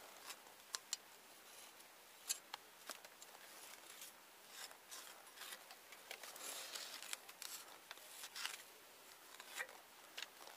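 Faint scattered clicks and short scrapes of hands working at a beehive's front entrance, with jacket fabric rustling close to the microphone.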